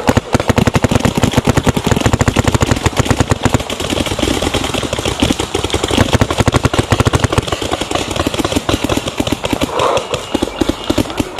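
Paintball markers firing in long rapid strings, many shots a second, overlapping as a sustained firefight.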